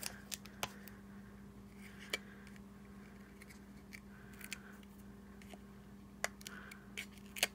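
Faint paper handling: scattered small clicks and light rustles as a die-cut paper piece with foam adhesive pads on its back is handled and pressed with the fingers, over a steady low hum.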